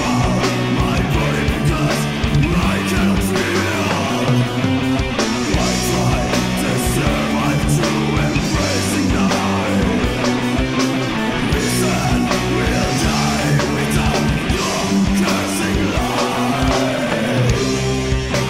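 Death/doom metal song: distorted electric guitars holding heavy chords over bass and drums, with a melody line of sliding notes above them.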